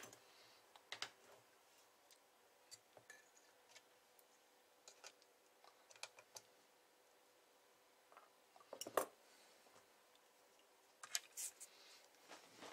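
Near silence broken by faint, scattered clicks and taps of hands handling wires, small tools and parts on an opened amplifier's aluminium chassis. The loudest clatter comes about nine seconds in, with another short cluster near the end.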